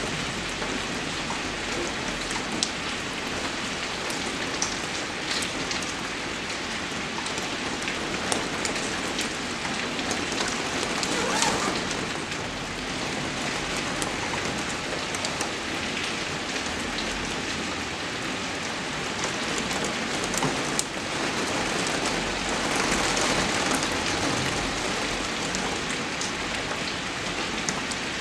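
Steady rain falling, a dense even hiss with scattered sharper drop hits, swelling a little about a third of the way in and again later.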